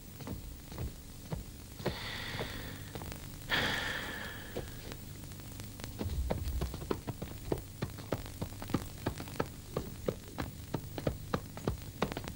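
Footsteps and a led horse's hooves on packed earth, a run of short clicks that grows steadier and stronger about halfway through, over a steady low hum. Two short rushing sounds come early on, about two and three and a half seconds in.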